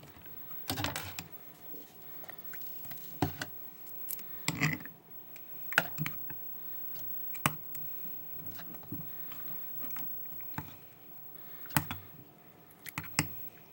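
A mixing utensil stirring thickening glue-and-borax slime in a mixing bowl, with irregular clicks, knocks and scrapes against the bowl.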